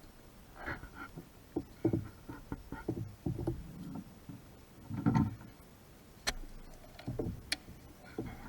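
Irregular knocks, clunks and a few sharp clicks of hands and tools handling fuel-line fittings and hose in an engine bay.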